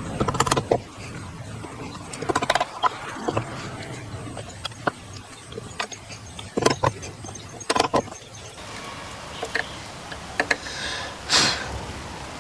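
Irregular knocks and clatters of workshop woodworking, about a dozen sharp strikes spaced unevenly, some in quick pairs, with a short scraping rush near the end.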